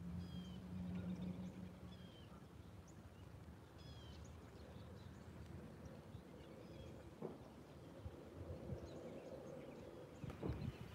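Faint, scattered short chirps from wild birds over a low steady hum, with a few sharp knocks near the end.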